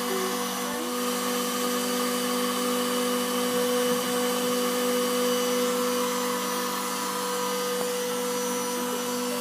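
CNC cutting machine running steadily, a constant motor hum and whine over an even hiss.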